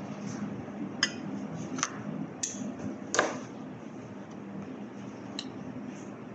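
A few sharp clinks and knocks of metal bakeware being handled, the loudest a bit over three seconds in, over a steady low hum.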